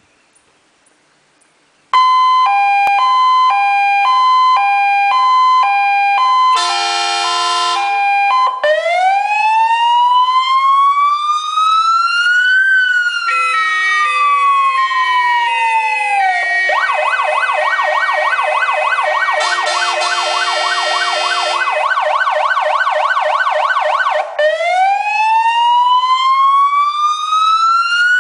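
Warning siren of a Star 244 fire engine, switched on about two seconds in and cycling through its tones. It plays a high-low two-tone, a brief harsher multi-note tone, a slow wail rising and falling over several seconds, and a fast yelp, then returns to the slow wail.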